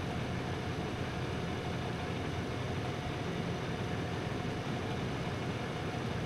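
Fire engine idling: a steady, even low engine rumble.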